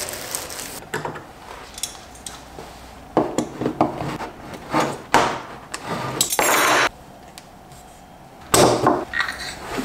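Pliers prying and knocking at the stuck lid of a small paint can: a run of sharp clicks and knocks, with one longer scrape near the middle, as the lid refuses to come off.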